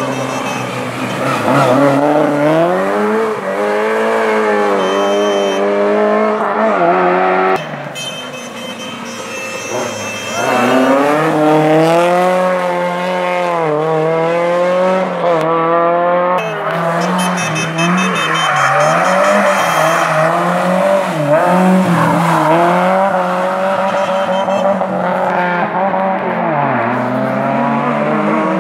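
Rally car engines at full throttle, the pitch climbing and dropping with each gear change and lift. The sound falls away abruptly about eight seconds in, and a second car's engine comes in about ten seconds in, climbing through its gears.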